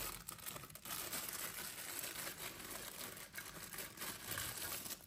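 Thin clear plastic bag crinkling as a hair-styler attachment wrapped in it is handled.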